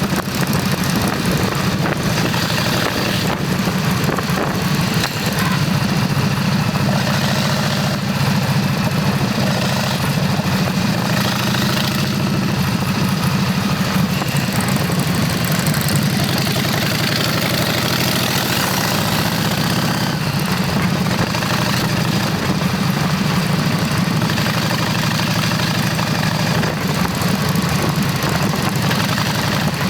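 Motorcycle engine running steadily at an even, unchanging pitch, with a constant noise haze over it.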